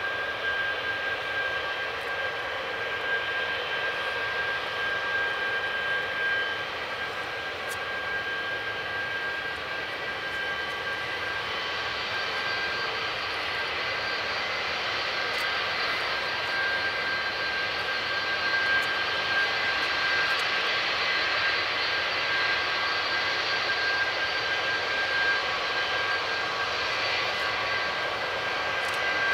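Jet airliner engines running with a steady whine, getting a little louder in the second half.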